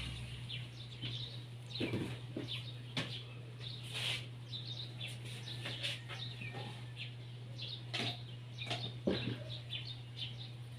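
Birds chirping faintly in short, scattered calls, with a few light clicks and knocks in between over a steady low hum.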